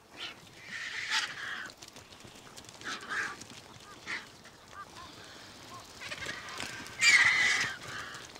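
Vultures squabbling over a carcass, giving harsh, hoarse hissing calls in a series of separate bursts; the loudest and longest comes about seven seconds in.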